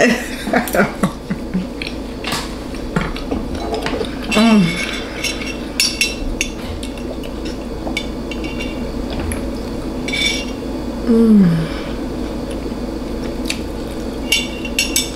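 Eating noodles: a utensil clinking against a bowl in scattered clicks, with mouth sounds of eating, and two short falling hums, about four seconds in and again near eleven seconds.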